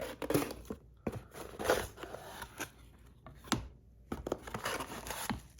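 Packaging being handled as a box is opened and its contents taken out: three spells of rustling and crinkling, with a few sharp clicks and taps between them.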